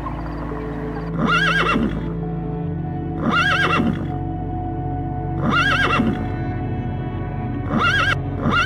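A horse neighing again and again, about every two seconds, each call almost the same as the last, over steady background music.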